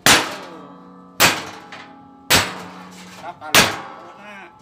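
A 2.5 kg hammer striking a chisel held against a steel drum to split it, four blows a little over a second apart, each leaving the drum's metal ringing.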